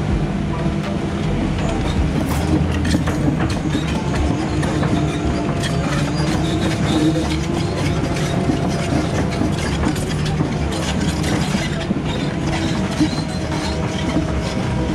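Komatsu 170 excavator travelling on its tracks: the diesel engine runs steadily under a continuous clanking and rattling of the track links.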